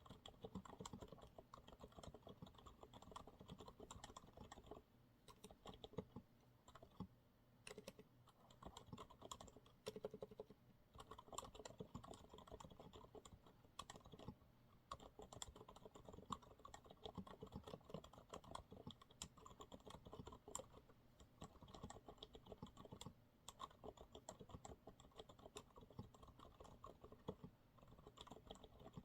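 Typing on a Monsgeek MG108W keyboard with TTC silent brown switches: quiet, dampened keystrokes in quick continuous runs, broken by a few short pauses.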